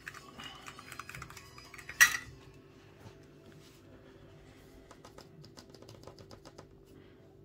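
A short blast from an air duster about two seconds in, followed by many small clicks and taps of handling on the workbench.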